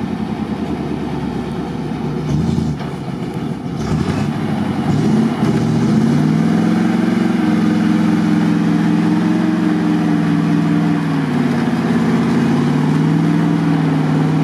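Off-road vehicle's engine working under load to pull out of mud: uneven at first, then the revs rise and hold steady, dip briefly and climb again near the end.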